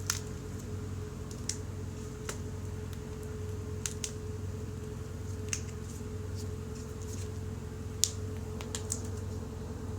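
Light, sharp clicks and taps at irregular intervals, about nine in all, from small parts or tools being handled, over a steady hum with a faint held tone.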